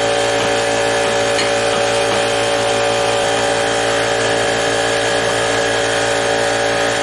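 A handheld power tool running steadily at constant speed, a continuous motor whine with no breaks.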